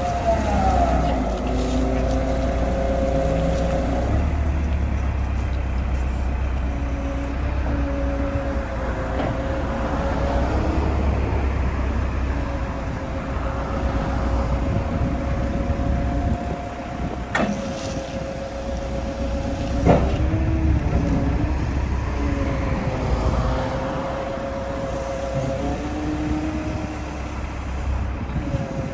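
Volvo EW140B wheeled excavator's diesel engine running under load, with the hydraulic whine rising and falling in pitch as the boom and arm are moved. Two sharp metallic knocks come about two and a half seconds apart, near the middle.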